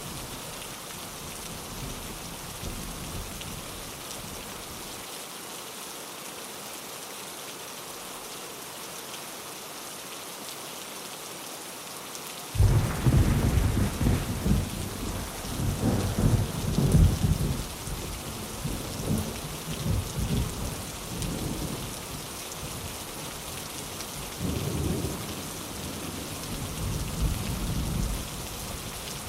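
Steady rain hissing. About twelve seconds in, thunder breaks in suddenly and rolls on for several seconds before fading, and a second, weaker rumble of thunder comes near the end.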